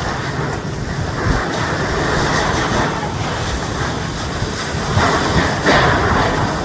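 Strong squall wind gusting over the microphone: a continuous rumbling rush, with stronger gusts about five to six seconds in.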